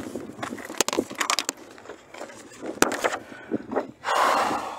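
Footsteps on gravel and dry grass, with irregular clicks and knocks from a handheld phone, a sharper knock about three seconds in and a short rush of noise near the end.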